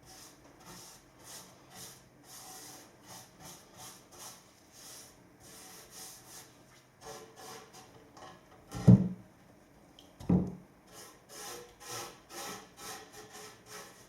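Handsaw cutting timber in steady back-and-forth strokes, about two a second, with two loud knocks a little past the middle.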